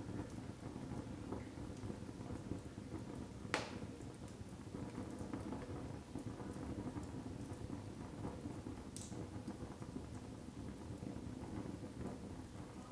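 Split logs burning in a wood fireplace: a steady low rumble of the flames with light crackling, a sharp pop about three and a half seconds in and a softer one near nine seconds.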